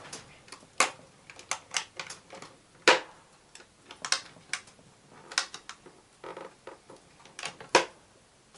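Metal catches on a wooden box being snapped shut and the box handled: an irregular run of sharp clicks and light knocks.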